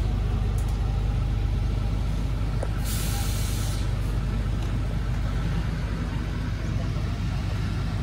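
Steady mechanical drone of a feed-loading auger running as pelleted feed pours from its spout into a bulk truck compartment, with a short hiss of air about three seconds in.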